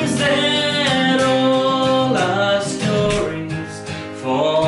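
Steel-string acoustic guitar being strummed and picked, with a man singing over it.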